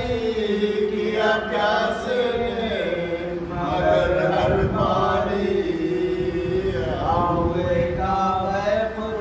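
A man reciting an Urdu marsiya, an elegy for the martyrs of Karbala, in a slow melodic chant, holding long notes that slide up and down in pitch.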